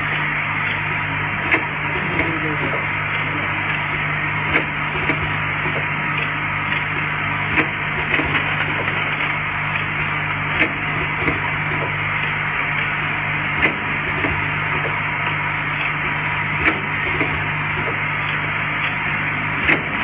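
Automatic rotary bottle filling and capping machine running: a steady motor hum under a stream of mechanical clicks, with a louder knock about every three seconds as it cycles.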